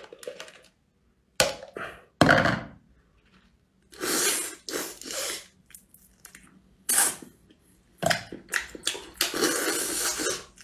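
A couple of knocks as a cup of spicy crayfish tails is tipped out onto a plate, then close-up eating: short, hissy sucking and slurping bursts as the tails are sucked and chewed one at a time, growing busier near the end.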